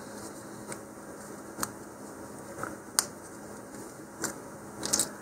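Die-cut cardboard centering rings being popped out of their card sheet by hand: a handful of separate light clicks and snaps of card, the sharpest about three seconds in.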